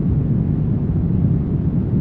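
Brown noise: a steady, deep rushing hiss with most of its weight in the low end and little treble, unchanging throughout.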